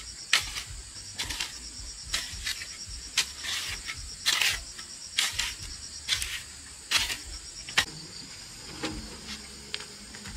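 Insects chirring steadily and high, with a short noisy scrape or chop about once a second that stops near the end.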